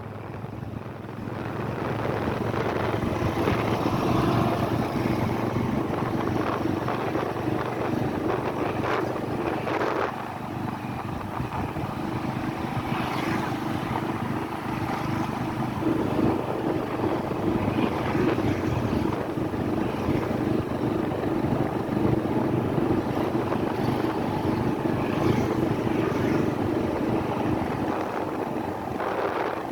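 Motorbike engine running steadily on the move, its level easing a little about ten seconds in and picking up again a few seconds later.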